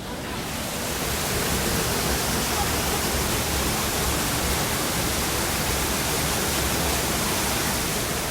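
Steady rush of flowing water, swelling up over the first second and then holding even.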